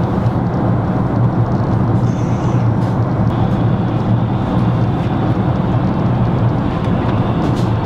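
Steady low rumble of an airliner cabin in flight: engine and airflow noise heard from inside the cabin.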